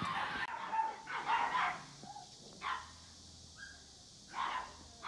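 A dog barking a few times in short calls with pauses between them.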